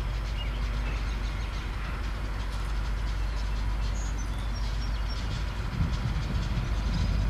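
Distant EMD SD50 diesel locomotive approaching, its 16-cylinder prime mover a steady low drone that grows louder near the end.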